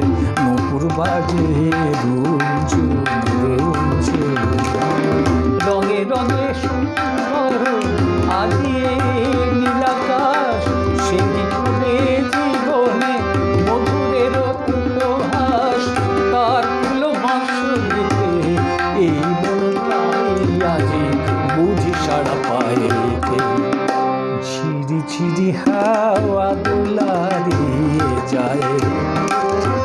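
Tabla and a keyboard playing an instrumental passage: a melody of held, wavering notes over a steady tabla rhythm, with deep bass-drum strokes.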